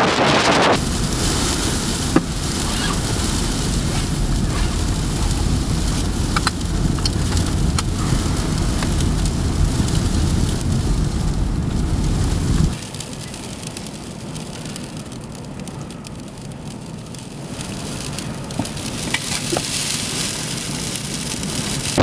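Strong wind blowing on the microphone: a deep rumble under a crackling hiss with scattered sharp ticks. About halfway through, the rumble cuts off suddenly and a quieter, hissing wind remains.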